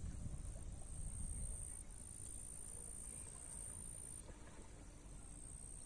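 Steady high-pitched insect shrilling, like crickets, that breaks off briefly a few times, over a low outdoor rumble.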